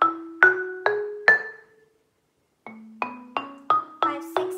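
Marimba struck with yarn mallets, playing single notes in a rising scale at about two a second: the top of an eight-note run up one octave. After a pause of about a second, the run starts again from the low note and climbs.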